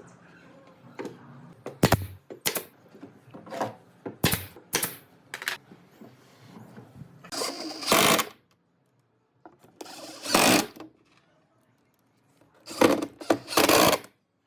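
Workshop tool work on wood: a few sharp knocks, then three short runs of a power tool, each about a second long.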